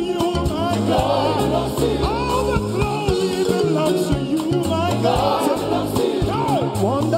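Live gospel music: a band with bass and drums backing a lead singer and a choir, the sung melody wavering over a steady beat.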